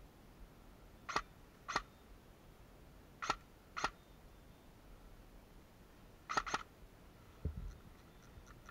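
Airsoft guns firing single shots as sharp pops, in three pairs about half a second apart within each pair. A low thump follows late on.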